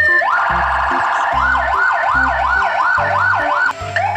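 Electronic police car siren changing tones: a falling wail bottoms out at the start, then a fast warble, then a yelp sweeping up and down about three times a second. It switches to a quicker yelp near the end.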